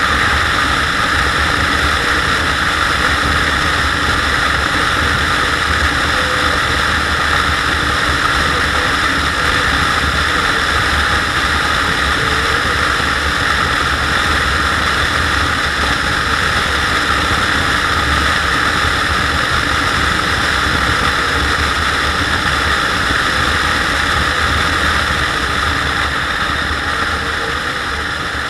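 SYM Joymax GTS 250 Evo maxi-scooter cruising at steady speed: a continuous rush of wind and road noise over the low drone of its engine, a little quieter near the end.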